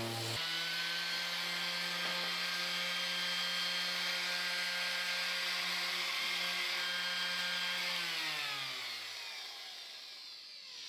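Electric random orbital sander running with a steady hum. Less than half a second in, its pitch jumps up as the sanding pad breaks apart and it runs free. After about eight seconds it is switched off and winds down.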